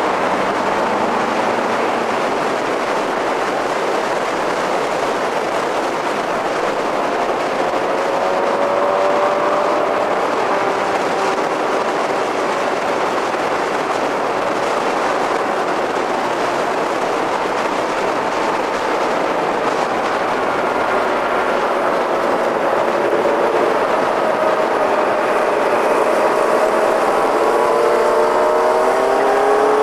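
Steady wind and road roar on a camera mounted on the roof of a moving 1990 Mazda Miata. An engine note keeps rising and falling through the curves and grows louder near the end.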